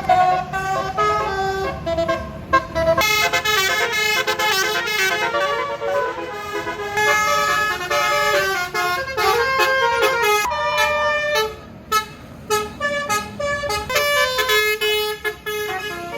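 A tour bus's basuri horn, a set of multi-tone musical horns, playing a fast melody of quick-changing notes with short breaks between phrases.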